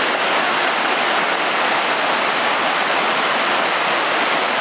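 Glacial meltwater river rushing hard over rocks close by, a loud steady roar of white water.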